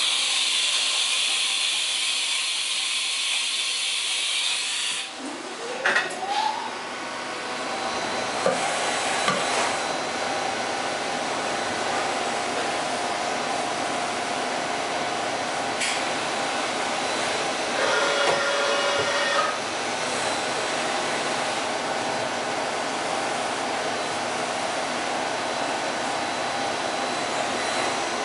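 Haas VF-3 vertical machining center running. A hiss fills the first five seconds. Then a rising whine comes in as the spindle spins up, settling into a steady whine while the axes traverse, with a few clicks along the way.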